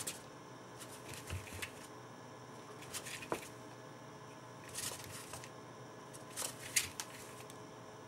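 Chinchilla taking a sand bath in a bowl: faint, irregular bursts of sand rustling and scratching as it scrabbles and shifts in the sand.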